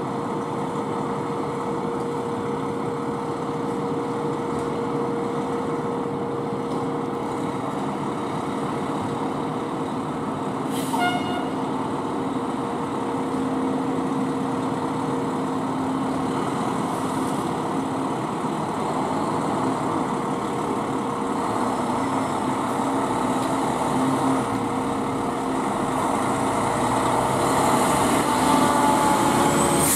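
Fire apparatus diesel engines running steadily in the station bay, growing louder near the end as an engine pulls out, with a short sharp burst about a third of the way in.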